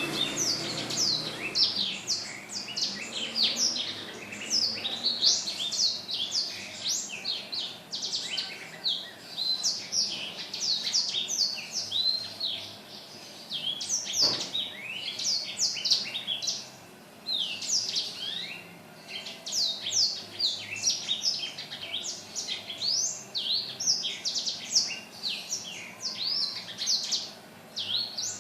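Blackthroat (black-throated canary) singing a long, fast, continuous song of rapid high chirps and trills, breaking off briefly twice. A single faint click comes about halfway through.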